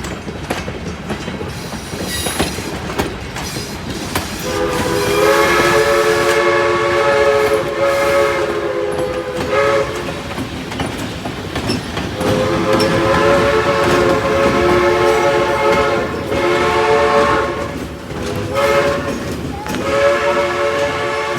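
Railroad train rolling by with wheel clatter while its locomotive sounds a loud multi-note chime signal in a long, long, short, long pattern, the standard warning for a grade crossing.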